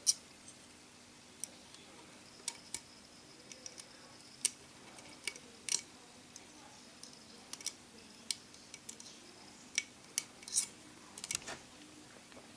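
Irregular small clicks and taps, some twenty spread unevenly, as a replacement iPhone 4 home button is pushed and worked into place in the phone's front panel.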